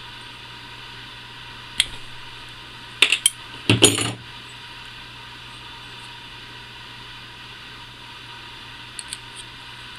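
Small metal parts and hand tools clicking and clattering on a tabletop while an air rifle's pump head is taken apart. There is a single sharp click about two seconds in and a quick run of clicks around three seconds. A louder clatter comes just before four seconds, and a couple of faint clicks come near the end.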